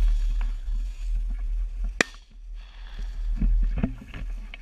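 A single shotgun shot about two seconds in, fired at a flushing game bird, over wind rumble on the microphone and the rustle of dry grass.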